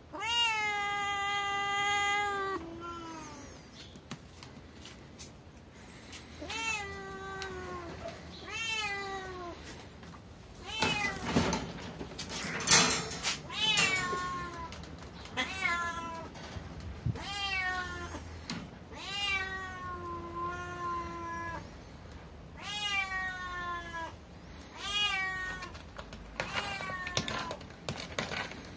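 Domestic cats meowing over and over: one long meow at the start, then a run of shorter meows every second or two, with a louder, harsher stretch about halfway through.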